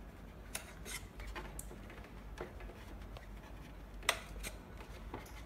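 Faint rubbing and scraping with scattered small clicks as a screwdriver tip presses a glued airbag into place inside a blood pressure monitor's plastic cuff housing. There are sharper clicks about half a second in and again about four seconds in.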